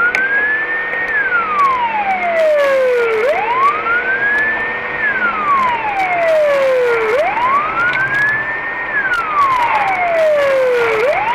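Police car siren on a slow wail. Each cycle rises quickly in pitch, holds briefly at the top, then falls slowly, repeating about every four seconds.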